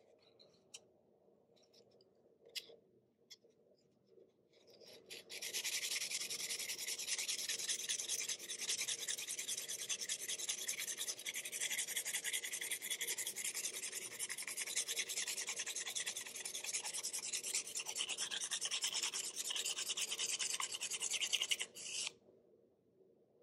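Graphite lead of a Faber-Castell 9000 HB pencil rubbed rapidly back and forth on a sandpaper pad to sharpen its point: a steady, fast scratching that starts about five seconds in and stops suddenly near the end. A few faint taps come before it.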